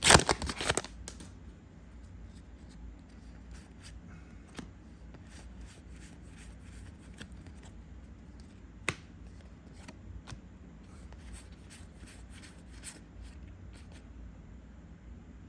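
A foil booster pack torn open in the first second, then trading cards slid and flicked through one by one with soft, irregular clicks.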